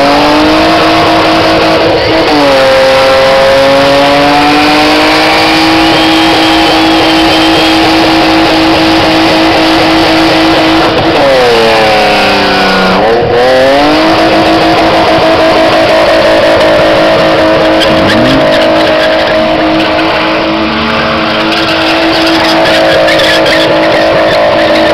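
BMW E36 engine held at high revs during a burnout, the rear tyres spinning and smoking against the surface. The revs sag briefly about two seconds in, drop away again around halfway, then climb back and hold steady.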